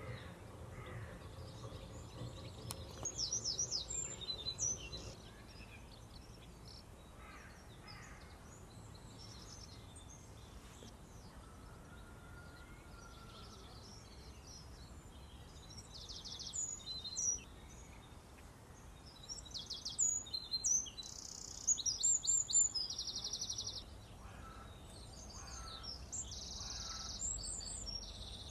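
Garden birds calling and chirping in short scattered bursts, including quick chattering runs, over faint outdoor background noise. A faint low hum is there for the first few seconds.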